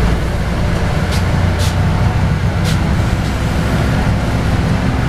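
Steady low rumble of a LiAZ 5292.22 city bus heard from inside the cabin: the diesel engine running, with road noise. Three brief sharp sounds come in the first three seconds.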